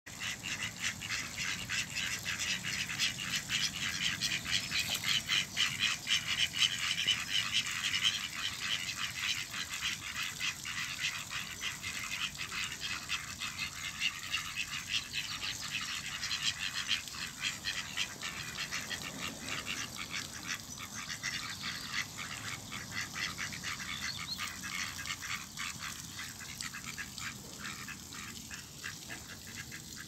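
Mallard ducks quacking and chattering in a dense, rapid run of calls, loudest in the first several seconds.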